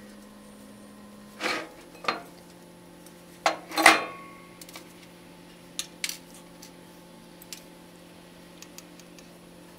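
Metal parts of a small electric motor being handled during reassembly: a few knocks, then a ringing metallic clank about four seconds in as the cooling fan goes onto the shaft, followed by faint light ticks.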